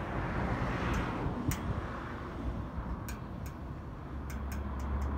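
Outdoor wind rumbling on the microphone with a steady hiss, broken by a few sharp ticks that come more often in the second half, and a steady low hum coming in about four seconds in.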